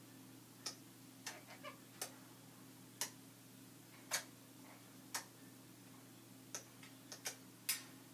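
Parrot making a string of sharp clicking sounds, about ten at uneven intervals, over a steady low hum.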